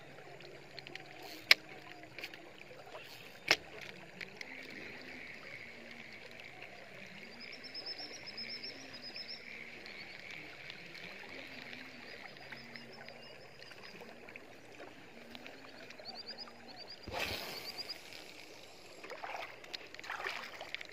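Water lapping around a small boat, with birds chirping in trills in the background. Two sharp clicks come about one and a half and three and a half seconds in, and a burst of rustling handling noise near the end.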